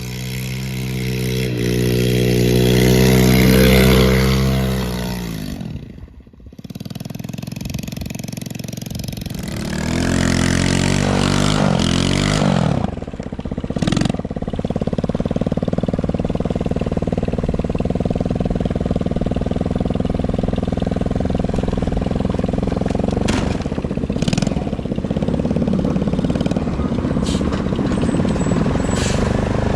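A Chinese 110cc ATV's small single-cylinder engine revs up hard, drops off sharply about six seconds in, then revs back up with its pitch climbing and falling before it settles into a steady run.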